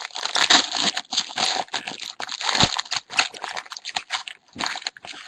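A trading card pack's wrapper being torn open and crinkled by hand, an irregular run of quick crackles that stops just before the end.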